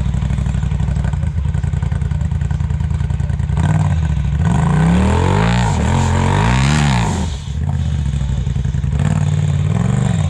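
Off-road side-by-side buggy engine idling with a steady pulse, then revved in several quick blips about halfway through, pitch rising and falling each time, before settling back to idle with one smaller rev near the end.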